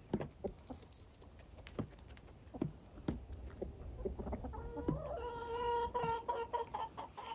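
Chickens clucking: a run of short, even-pitched clucks starts about halfway through, over scattered light taps.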